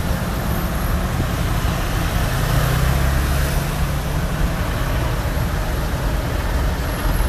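Engine and road noise of a moving songthaew pickup truck, heard from its open rear passenger bed, with the surrounding street traffic mixed in. The engine note grows stronger for a second or so around the middle.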